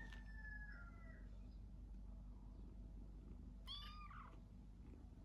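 Month-old kitten meowing: a high, drawn-out meow that trails off about a second in, then one short mew nearly four seconds in.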